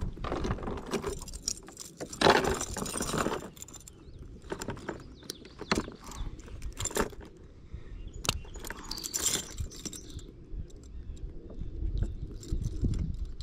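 Metal chain fish stringer jangling and clicking as it is handled and its wire snap clip is opened to take a bluegill, with a louder clatter about two seconds in.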